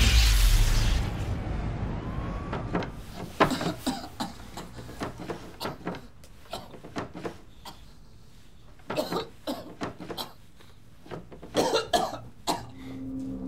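A loud whoosh at the start, then a scattering of short, irregular clicks and knocks, with a few brief vocal sounds among them near the end.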